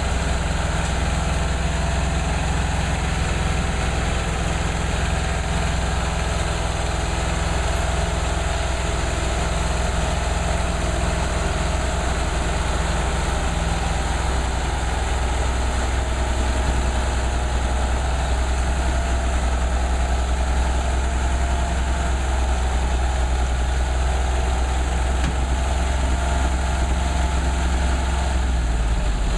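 Vermeer SC352 stump grinder's engine running steadily with a deep hum as the machine drives itself up the ramp onto a trailer.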